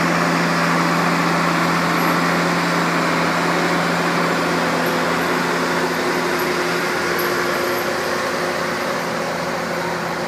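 Diesel engine of a Boschung Snow-booster rotary snowplough running steadily as the machine drives past, a loud even engine note that grows slightly fainter over the last few seconds as it moves away.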